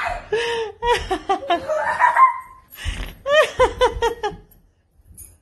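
Excited screaming and laughter in quick high-pitched pulses, with a rising squeal about two seconds in; it breaks off briefly near the end.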